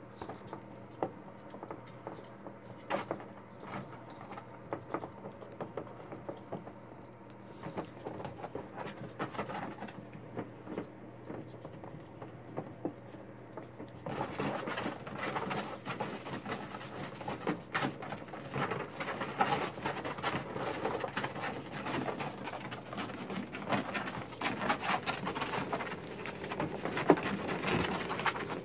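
Micro mini piglets grunting and scuffling as they jostle one another on blankets, growing louder and busier about halfway through.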